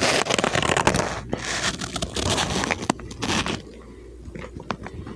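Close-miked eating: dense crunching and crackling for the first few seconds, then quieter with a few sharp clicks.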